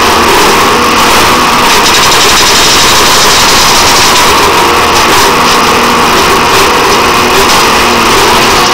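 Engine of a rail-mounted track maintenance machine running loudly and steadily as the machine creeps along the track, with a faint hum coming and going.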